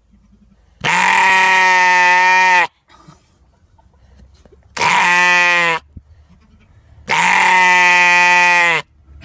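Sheep bleating loudly three times, each call a long, scream-like cry held at a steady pitch, the middle one shorter.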